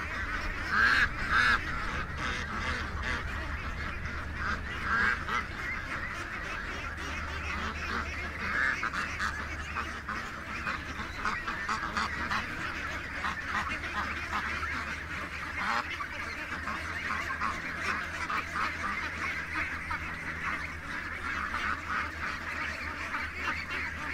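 A flock of domestic ducks quacking and chattering non-stop, many overlapping calls, with a few louder calls about a second in.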